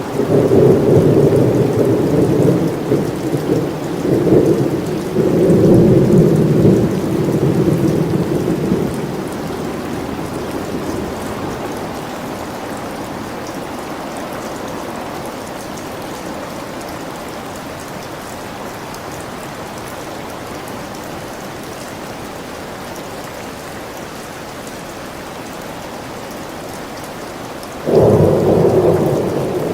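Steady rain falling in a thunderstorm. Rolling thunder rumbles over the rain for the first nine seconds or so and dies away, leaving rain alone. Near the end a new peal of thunder starts suddenly.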